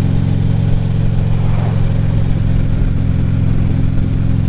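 2014 Harley-Davidson Ultra Classic Limited's V-twin engine running steadily at cruising speed.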